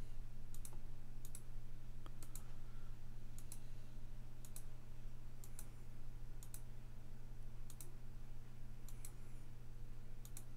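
Computer mouse button clicking about once a second at an irregular pace, many clicks a quick double snap of press and release, each placing a point with the pen tool. A steady low hum runs underneath.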